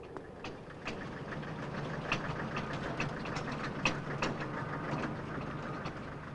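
Small vineyard tractor's engine running as it comes down a rutted dirt track, growing louder from about a second in as it approaches, with irregular sharp knocks and rattles.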